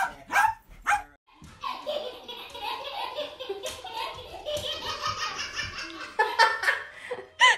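A dog barks about three times, then a long run of laughter follows.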